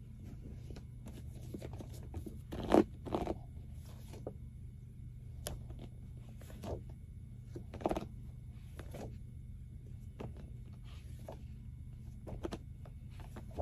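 Tarot cards being handled and shuffled, with irregular soft paper rustles and taps, the loudest about three seconds in and again near eight seconds. A steady low hum runs underneath.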